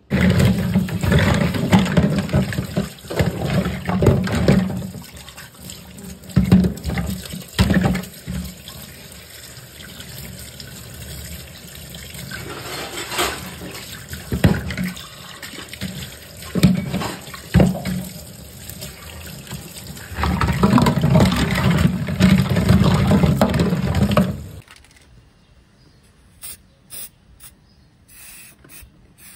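Tap water running and splashing into a stainless-steel sink while hands scrub black plastic leg caps under the stream. The water stops abruptly about 25 seconds in. Near the end come a few short hisses from an aerosol spray-paint can.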